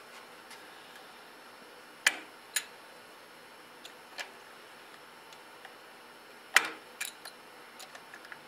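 Sharp metal clicks of a spanner wrench against the notched steering stem nut of a Honda VTX1300: about half a dozen scattered clicks, the loudest about six and a half seconds in.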